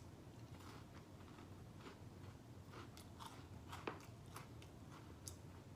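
Faint chewing and crunching as a cheese snack is eaten, with scattered soft crunches.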